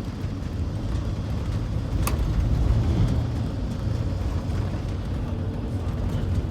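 Steady low rumble of a car driving, road and engine noise, with a single sharp click about two seconds in.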